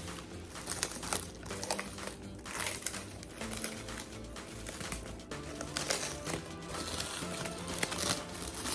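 Packaging crinkling in irregular crackles as it is handled and unwrapped, over background music.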